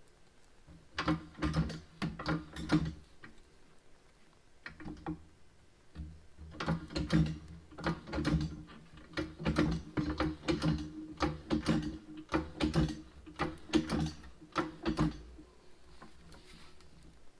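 Hydraulic floor jack pumped in short strokes to raise a tractor's Lift-All hydraulic pump into place, a click and creak with each stroke at about two to three strokes a second. A short run of strokes comes about a second in, and a longer run from about six seconds until near the end.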